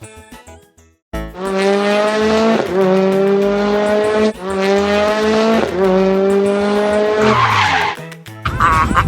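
Race car engine sound effect accelerating through the gears: a steady engine tone that climbs a little and drops back at each shift, three times. Near the end comes a brief tire screech.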